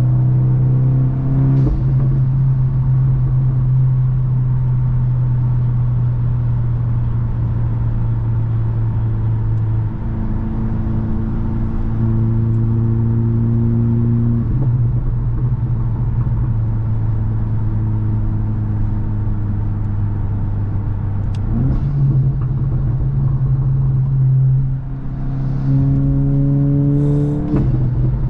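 Tuned VW Mk8 GTI's turbocharged 2.0-litre four-cylinder, with an aftermarket catback exhaust and resonator, running under way. The engine note holds steady at cruise and changes step with several gear changes. Near the end it climbs in a pull and breaks off sharply at an upshift.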